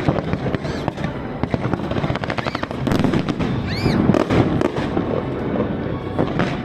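Fireworks display: a dense run of bangs and crackling reports one after another, with a short arching whistle about two-thirds of the way through.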